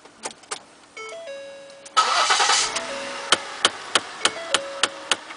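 A 2010 Ford Flex's dashboard chime sounds in stepped tones, then the engine starts about two seconds in and the HVAC fan blows steadily. From about three seconds in, a sharp click repeats about three times a second from behind the passenger-side dashboard: the faulty HVAC recirculation door actuator.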